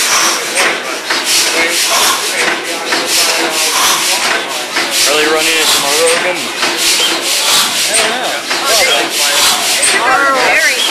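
600-horsepower Snow natural-gas compressor engine running, a loud, dense mechanical noise with a steady rhythmic beat from its valve gear and moving parts.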